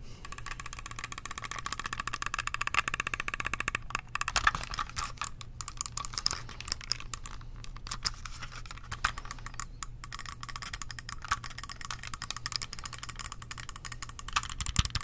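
Rapid, continuous clicking of an Acer computer mouse's buttons, many clicks a second.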